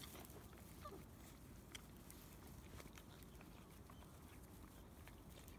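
Near silence, with faint, scattered clicks of Labrador retriever puppies eating from plastic food trays.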